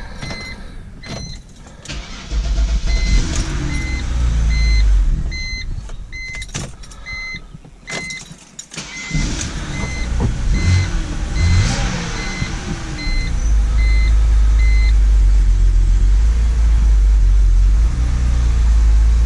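BMW X3's 3.0-litre straight-six running after an ignition coil replacement, a low steady rumble that dips about 8 seconds in and grows stronger toward the end. The car's warning chime beeps evenly, about one and a half times a second, and stops about three-quarters of the way through, with a few knocks or clicks along the way.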